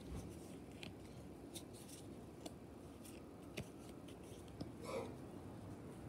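Faint, scattered clicks and snaps of Pokémon trading cards being handled and shuffled in the hands, over a quiet room hiss.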